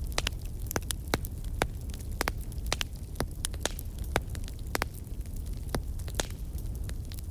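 Wood fire crackling: irregular sharp pops and snaps, about two a second, over a steady low rumble.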